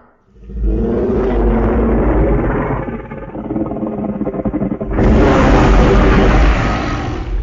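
Deep, rumbling monster growl sound effects, two in a row: the first fades out after about three seconds, and a louder one starts about five seconds in.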